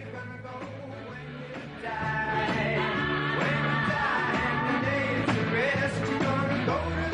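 Rock-and-roll style song with a singing voice over a band, quiet at first and turning up noticeably about two seconds in.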